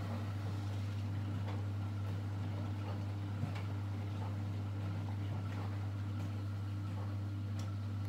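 Miele Novotronic W 980 front-loading washing machine in its wash phase, the drum turning and tumbling the load. Throughout there is a steady low hum with faint irregular knocks and splashes.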